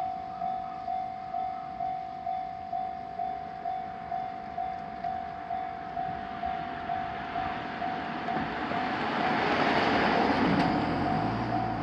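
Japanese railway level-crossing warning bell ringing steadily at about two strikes a second. From about eight seconds in, an electric train passing through the crossing builds up loud over the bell, its wheels on the rails peaking around ten seconds.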